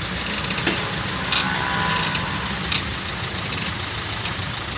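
Maruti Ertiga engine idling steadily while the brake pedal is applied, with a few short sharp clicks from the brake side during a check for rear drum-brake noise.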